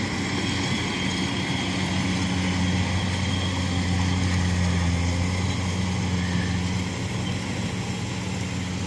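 Diesel engine of a Kubota DC-70 Plus combine harvester running steadily under load as it cuts rice, a constant low hum with machinery noise over it. It gets a little quieter near the end as the machine moves off.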